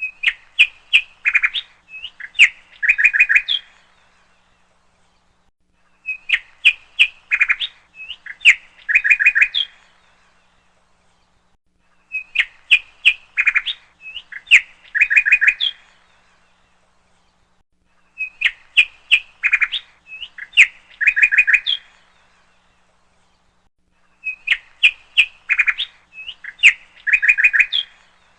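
A small parrot chirping: a phrase of quick chirps and short trills about three and a half seconds long, repeated the same way five times, about every six seconds, with short pauses between.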